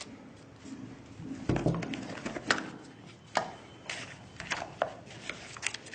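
Smartphone box and its contents being handled: scattered light knocks and clicks of cardboard and plastic, about half a dozen spread through, with soft rustling between.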